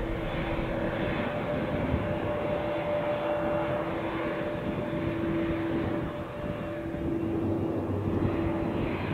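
Boeing 787 Dreamliner's turbofan engines running as the airliner taxis: a steady jet rumble with a faint held hum, easing briefly about six seconds in.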